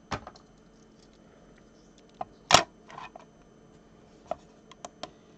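Scattered sharp clicks and knocks of a Hot Wheels die-cast car and its plastic-and-card blister packaging being handled, the loudest a single snap about two and a half seconds in.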